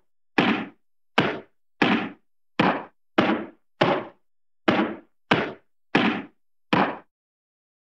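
A series of about ten sharp whacking hit sound effects, one every half second or so, each dying away quickly into silence.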